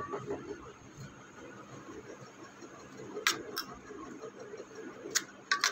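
Metal spoon clinking against a stainless steel plate while stirring paneer cubes in a wet masala paste: two sharp clinks about three seconds in and three more near the end.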